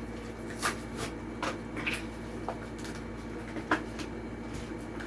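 Plastic and cardboard blister package of a toy car being handled and pulled open, with a few scattered sharp crackles and clicks.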